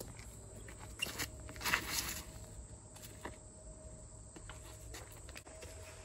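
A few footsteps or rustles on grass, the loudest between one and two seconds in, over faint outdoor background noise.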